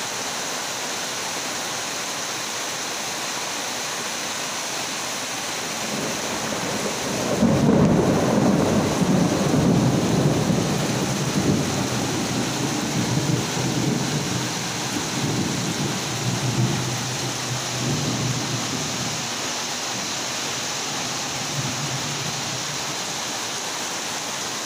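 Heavy rain pouring down steadily onto a flooded road. About seven seconds in, a loud roll of thunder rumbles in, peaks a second later, and keeps rolling for about ten seconds before it fades back under the rain.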